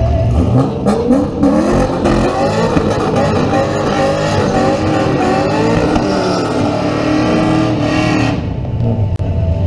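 Drag cars' engines revving hard during a burnout at the starting line. The pitch climbs and wavers at high revs, then drops away suddenly about eight seconds in.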